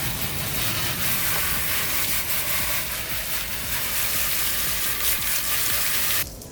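Water spraying steadily in a hiss, washing down the wet-sanded, primered motorcycle plastics; the spray cuts off suddenly about six seconds in.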